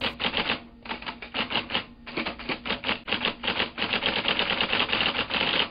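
Rapid run of sharp mechanical clicks, about eight to ten a second, with two short pauses in the first two seconds.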